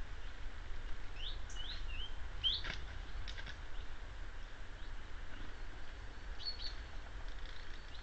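Wild bird calling: a quick series of short rising chirps about a second in, a few sharp ticks, then two brief high notes near the end, over a steady low hum.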